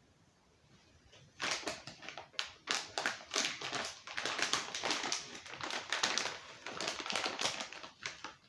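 Plastic food packets rustling and crinkling as they are handled, a dense run of irregular crackles starting about a second and a half in.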